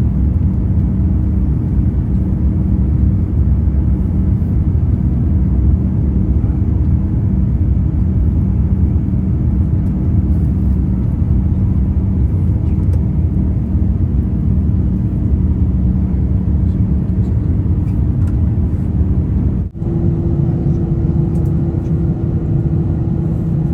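Airliner cabin noise inside an Airbus A350-900 with its Rolls-Royce Trent XWB engines running: a loud, steady, deep rumble with a steady hum over it. Near the end the sound drops out for an instant at an edit, and the hum then sits slightly higher.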